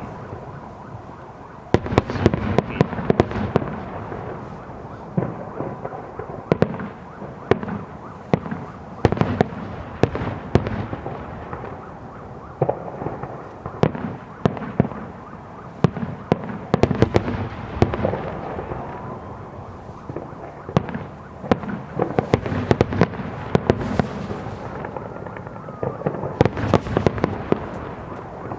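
Aerial fireworks display: shells bursting in rapid, irregular bangs and cracks, often in dense clusters, over a continuous din of explosions.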